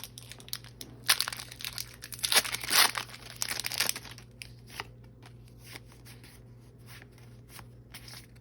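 Foil wrapper of a Pokémon TCG Rebel Clash booster pack being torn open and crinkled, busiest and loudest from about one to four seconds in, then dying down to light rustles and taps.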